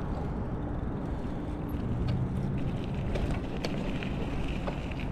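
Wind buffeting the action camera's microphone, with road noise, as an e-bike rides along at cruising speed.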